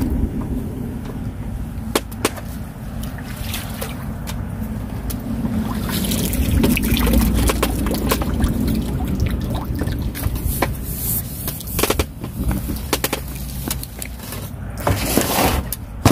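Water splashing and trickling as a hooked crucian carp struggles at the surface while being played on a pole rod and brought to the net, with a steady low rumble and scattered sharp knocks throughout and a louder splashy surge near the end.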